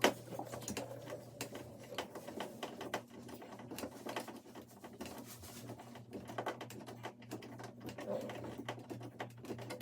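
Irregular small clicks and scrapes of a hand screwdriver driving a screw into a wall anchor, with a sharp click at the start, over a steady low electrical hum.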